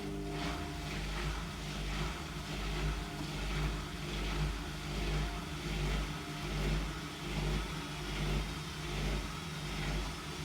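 Hotpoint WMFUG742 washing machine running with an overloaded drum of towels: a steady low motor hum that swells and fades a little more than once a second as the heavy load turns in the drum.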